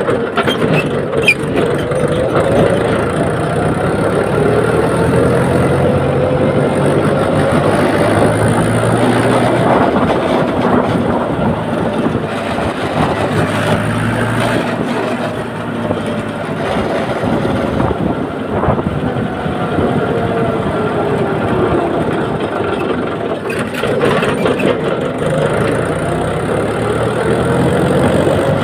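Mahindra tractor's diesel engine running while driven along the road, its pitch slowly rising and falling as the engine speed changes.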